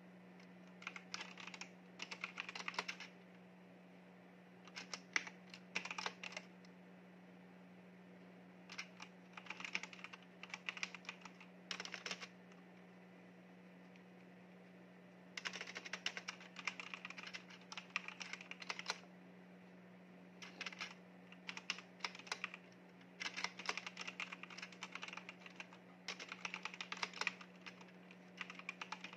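Typing on a backlit mechanical keyboard: bursts of quick, clacking keystrokes lasting a few seconds each, separated by short pauses, the longest a couple of seconds about halfway through. A faint steady low hum runs underneath.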